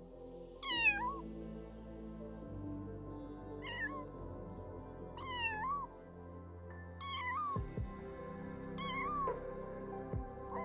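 A cat meowing repeatedly, about six short meows a second or two apart, each falling in pitch with a slight upturn at the end.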